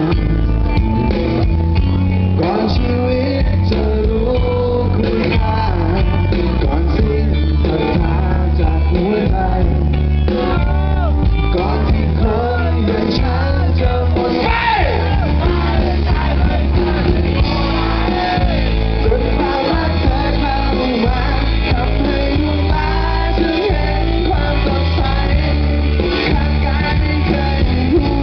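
Live rock band playing loud: a male singer over electric guitar, a heavy bass line and drums.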